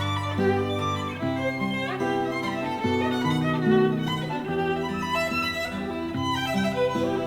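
Recorded music playing through a pair of B&W CM6 S2 bookshelf speakers driven by a Luxman L-505u amplifier: a piece led by violin with other strings, held notes moving in several parts.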